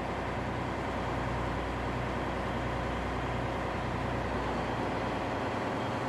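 Steady din of a ship's engine-room machinery: a constant low hum under a broad hiss.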